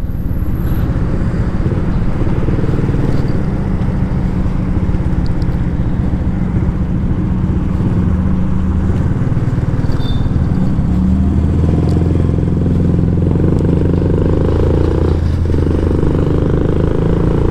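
Motorcycle engine running steadily under way, with a continuous hum and road noise; the engine note changes about eleven seconds in.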